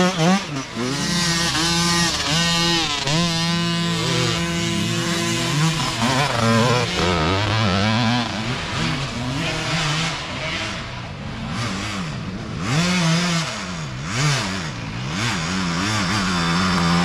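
Several mini dirt bikes riding past one after another, their small engines revving up and down as the riders work the throttle through a dirt turn. Loudest as a bike passes close, near the start and again near the end.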